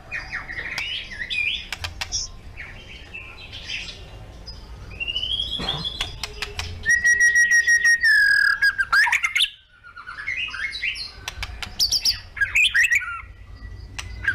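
Sooty-headed bulbul (kutilang) singing loudly: a busy run of varied chirps and gliding whistled phrases. About halfway through it holds one long steady whistle, then breaks off briefly before more chirping.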